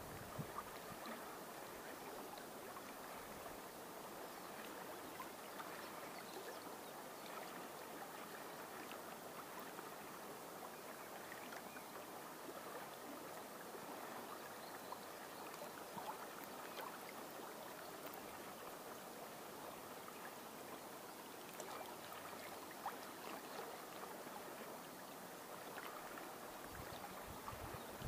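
River water flowing and lapping at the bank of the upper Volga, a faint steady gurgling.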